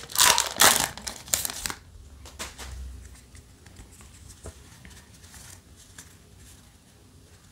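Foil wrapper of a Yu-Gi-Oh! booster pack crinkling loudly as the freshly torn pack is pulled open and the cards are slid out. After about two seconds it gives way to faint rustling and light clicks of the cards being fanned through by hand.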